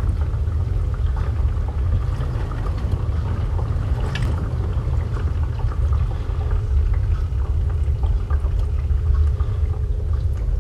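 Underwater ambience: a steady low rumble with scattered small bubbling ticks and crackles.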